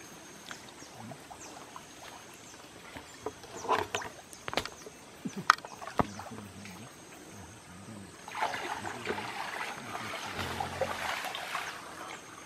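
Water splashing and sloshing as people wade waist-deep through a muddy creek. A few sharp splashes come in the middle, and the splashing grows louder and continuous from about two thirds of the way in.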